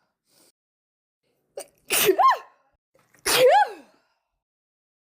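A woman sneezing twice in a sneezing fit, a little over a second apart, each a quick in-breath then a loud voiced "achoo" whose pitch rises and falls.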